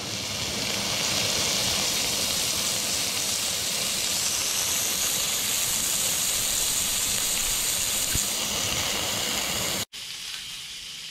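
Bream fillets sizzling in smoking-hot peanut oil on a wok over a propane burner as they blacken: a loud, steady hiss. It breaks off for an instant near the end and comes back quieter.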